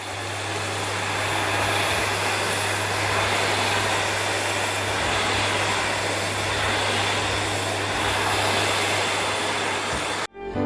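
Vacuum cleaner running steadily, a constant whooshing rush of air over a low motor hum, which cuts off abruptly near the end. Music begins right after.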